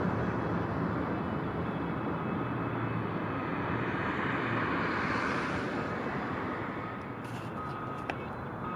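Street traffic: a steady rush of vehicle noise that swells about five seconds in and then eases off, with a few light clicks near the end.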